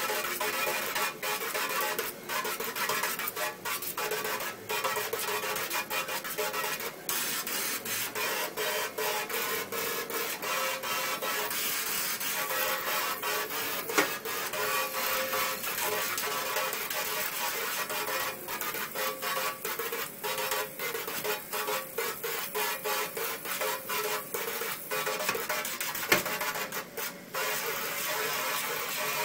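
A spray gun's water jet hisses and drums against a stainless steel sink, which rings with tones. The spray keeps breaking off for split seconds. Two sharp knocks land about halfway and near the end.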